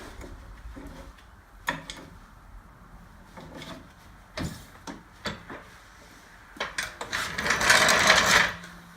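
A car being lowered on hydraulic lifting gear: a few separate clunks and knocks, then a loud hissing rush for about a second and a half near the end.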